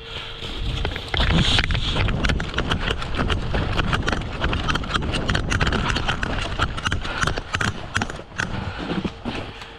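A player running in airsoft gear: fast, irregular footfalls with equipment rattling and knocking. This starts about a second in and goes on as a dense run of sharp clicks and thuds.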